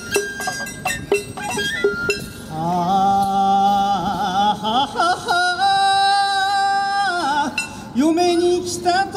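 Japanese folk song (min'yo) accompanying the dance: plucked strings at first, then a voice holding long wavering notes between the sung verses.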